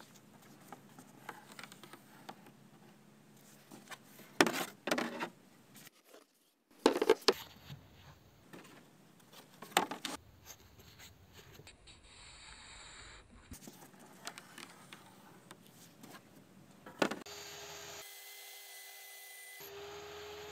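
A thin hardboard sheet being slid and rubbed across the wooden face of a cable reel disc, with several sharp knocks as it is shifted and set down. Near the end a steady hum takes over.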